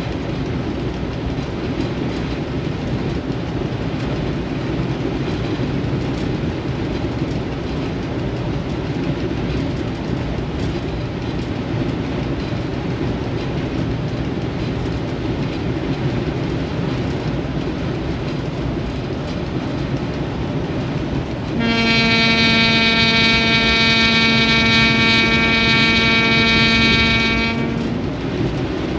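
ST44 ('Gagarin') diesel locomotive running, a steady rumble heard from inside its cab. About two-thirds of the way in, its horn sounds one long steady tone for about six seconds.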